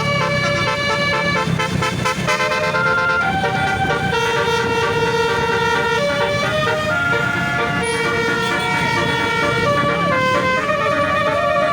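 Basuri telolet horn on a bus, a set of several air-horn trumpets, playing a continuous tune of held notes that step up and down in pitch, with the bus engine running underneath.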